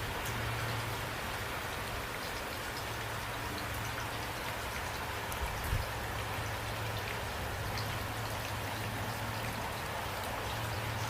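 Steady rain falling, a dense hiss with individual drops ticking through it, over a steady low hum. There is a brief low thump about six seconds in.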